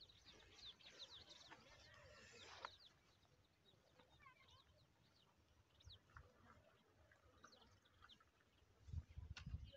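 Faint birds chirping: many short, quick downward chirps, with a few low thumps near the end.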